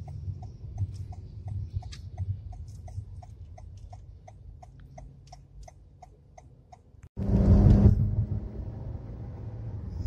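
Car turn-signal indicator ticking steadily, about three clicks a second, over the low hum of the car idling at an intersection. About seven seconds in, the sound cuts to the louder, steady rumble of the car's engine and tyres at road speed.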